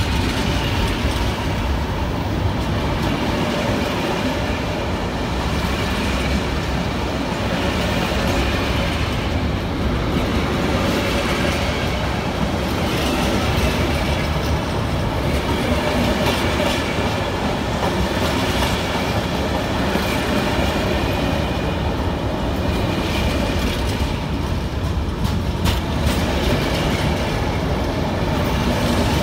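Container freight train's wagons rolling past at close range: a steady rumble and clatter of steel wheels on the rails, with a few sharper clacks near the end.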